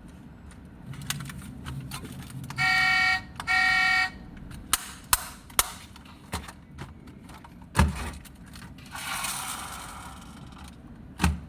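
A die-cast toy car's electronic sound module gives two loud horn beeps about three seconds in, followed by scattered clicks and knocks from the toy being handled, and a brief rushing noise later on.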